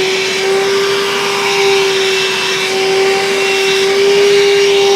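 Black & Decker Flex cordless car vacuum running at full speed: a steady motor whine over the rush of air through the nozzle.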